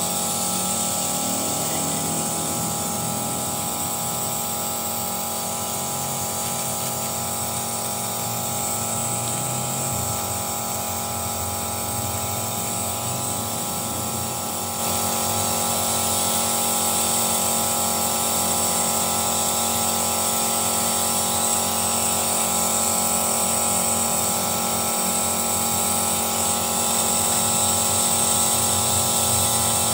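Car engine running steadily during an engine carbon-cleaning job, with a steady high-pitched whine over it. It gets a little louder about halfway through.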